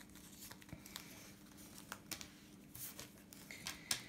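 Faint rustling and scattered light clicks of paper planner sticker sheets being handled, over a faint steady low hum.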